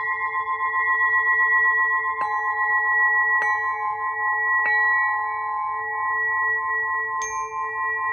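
Clear crystal singing pyramid struck four times, each strike renewing a long ringing of several steady tones. The lowest tone pulses evenly.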